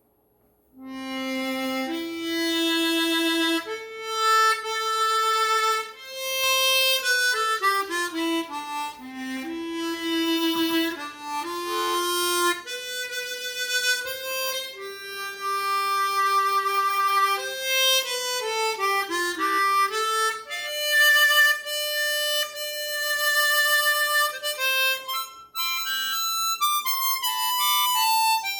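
Seydel Symphony chromatic harmonica fitted with Kettlewell Resonant Covers, played acoustically: a solo melody of held notes broken by quick rising and falling runs.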